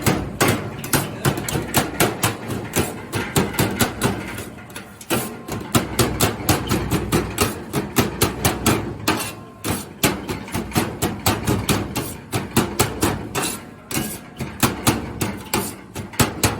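Rapid, repeated knocking of a kitchen utensil, about four to five strikes a second, breaking off briefly twice, typical of chopping or working shawarma chicken.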